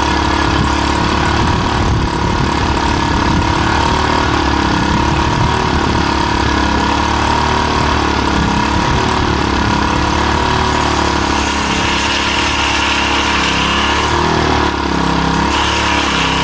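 Small 3.5 hp gasoline engine running steadily, driving a homemade stake-pointing machine. A higher whine joins about twelve seconds in and again near the end.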